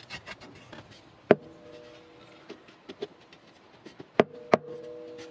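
Light handling clicks, then three sharp knocks, one about a second in and two close together near the end, each followed by a brief metallic ring: the thin steel axe head, cut from a tractor plough disc, being knocked against its wooden handle as it is fitted.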